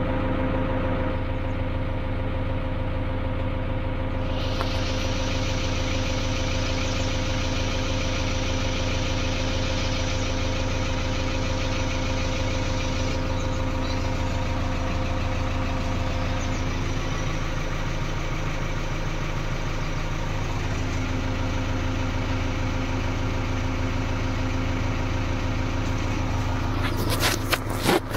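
JCB 3DX backhoe loader's diesel engine idling steadily, with a brighter hiss joining about four seconds in. A few sharp knocks near the end.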